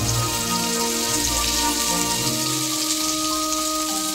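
Ground spice paste and garlic sizzling steadily in hot oil in a wok, with background music underneath.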